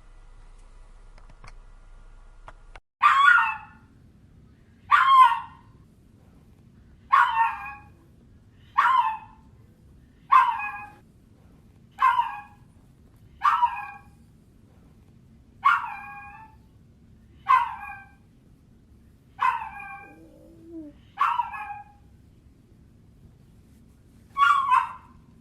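A dog crying in about a dozen short, high, whining yelps, one every second and a half to two seconds, starting about three seconds in.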